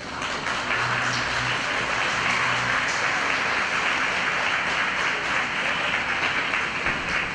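Audience applauding steadily, while the last low notes of the program music die away in the first few seconds.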